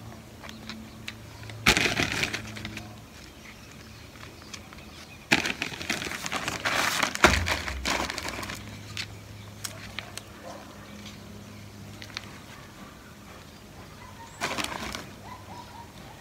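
Small gravel being taken from a bag and scattered over potting soil: three bursts of bag rustling and stones rattling, the longest about five seconds in with a dull thump near its end.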